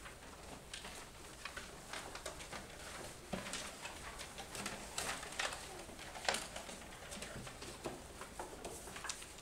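Paper worksheets being pulled out of desks and handled on a tabletop by several children: soft irregular rustles, crackles and light taps, the loudest about five to six seconds in.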